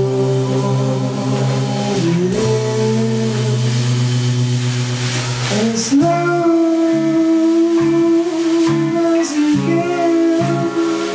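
Psychedelic rock band playing live: electric guitars, bass, drums and keyboards, with long held notes that move to a new pitch every two to four seconds.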